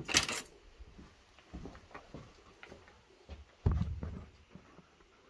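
Handling noises as parts and tools are moved about: a short scrape right at the start, scattered light knocks, and a heavier thump a little past halfway.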